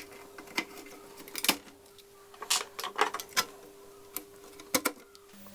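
Irregular small clicks and taps of an R65C22 VIA chip being handled and pressed into its socket on a Commodore 1571 floppy drive's logic board, over a faint steady hum.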